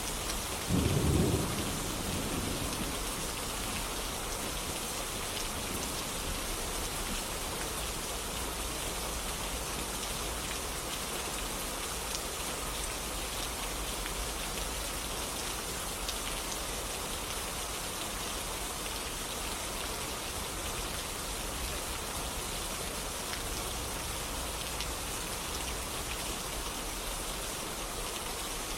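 Steady rain falling, with a brief low clap of thunder about a second in that rumbles away over the next second or so.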